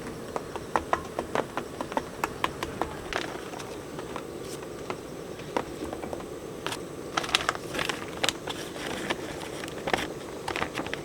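Steady rain with scattered, irregular sharp taps of drops striking nearby.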